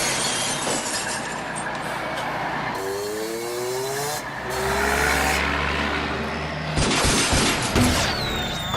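Car-chase sound effects: vehicle engines rising in pitch as they rev, over a dense rumble, then several sharp crashing impacts with shattering near the end.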